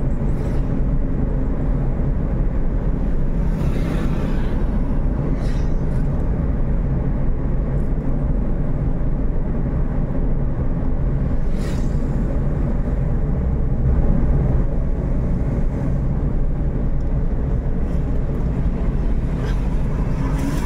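Steady low engine and road rumble from inside a vehicle moving along a paved road, with a low hum. A few other vehicles pass with short rushing swells, about four seconds in, again at about five and a half and twelve seconds, and near the end.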